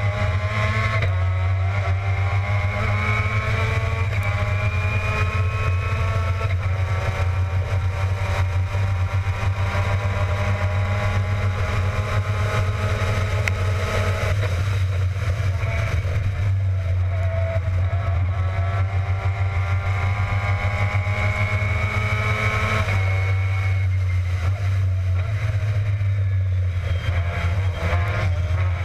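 Formula Mazda race car's Mazda rotary engine at racing speed, heard onboard. The engine pitch climbs steadily under acceleration and breaks off several times for shifts or lifts into corners, over a steady low wind rumble.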